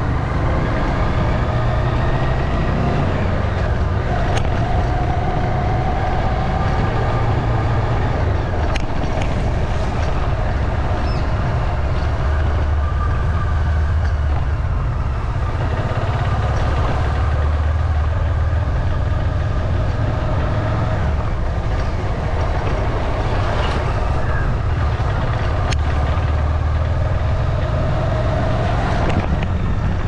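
A moving vehicle, heard from on board: a steady low rumble of running noise with a faint whine that drifts slowly up and down in pitch.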